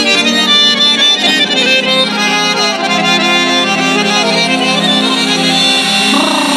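A song playing at maximum volume through an Amazon Basics 16 W Bluetooth soundbar, with sustained melodic lines over a steady low part.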